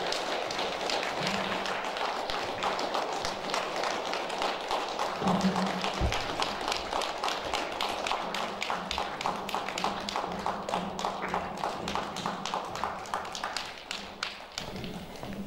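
Audience applauding, which settles into steady rhythmic clapping of about four to five claps a second and stops shortly before the end.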